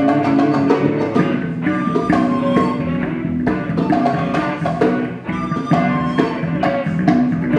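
Live instrumental music: a wooden Native American-style flute playing a sustained melody over electric bass and electric guitar.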